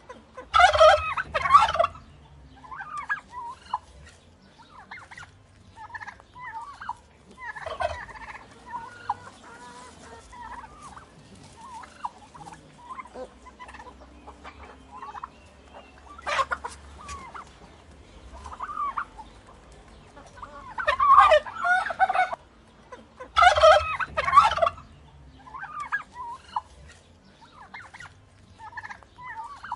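Turkeys gobbling: loud gobbles about a second in and twice more about two-thirds of the way through, with softer calls in between.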